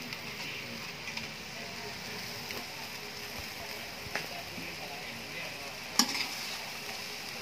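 Canton noodles and mung bean sprouts sizzling gently in a metal wok over low heat, with a metal spatula stirring and clicking against the pan a few times, loudest about six seconds in.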